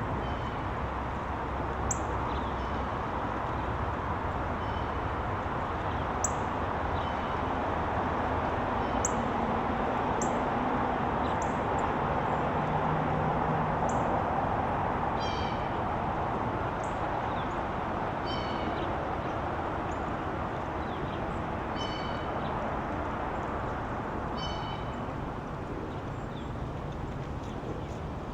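Small birds at a backyard feeder calling: scattered short, high chirps, and from about halfway through a repeated call of several quick notes every few seconds. Under them runs a steady background hiss and rumble.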